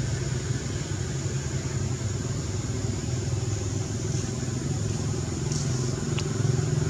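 A motor engine running steadily as a low drone, growing louder just before the end, with two faint clicks shortly before that.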